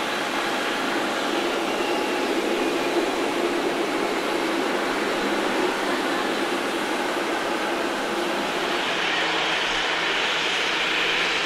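Jet engines of a Boeing 787-8 Dreamliner (GEnx-1B turbofans) running as the airliner taxis, a steady whine and rush. About nine seconds in, the rush turns brighter and hissier.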